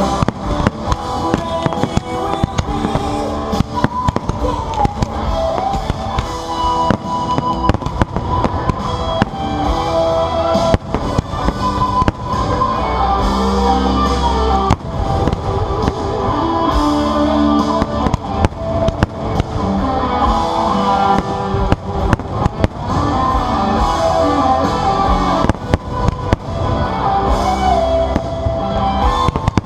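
Fireworks bursting repeatedly, many sharp bangs and crackles, over loud music played for a musical fireworks display.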